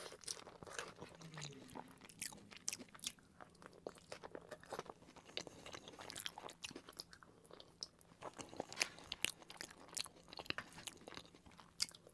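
Close-miked chewing of cheesy fries: wet mouth sounds with many irregular sharp clicks and smacks.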